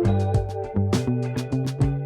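Background music with a steady drum beat and a moving bass line.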